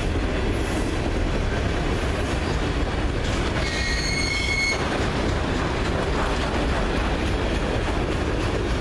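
Freight train of autorack cars rolling past at speed: a steady rumble of steel wheels on rail, with a brief high wheel squeal about three and a half seconds in that lasts about a second.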